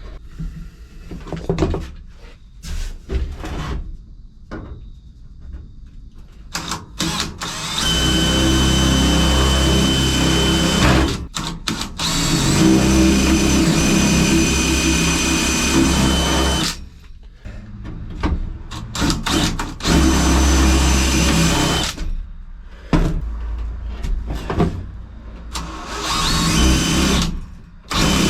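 Power drill drilling out spot welds in rusted sheet steel, running in several long spells of a few seconds each with a steady whine, stopping and restarting between holes. Scattered knocks and handling clanks come first, before the drilling starts.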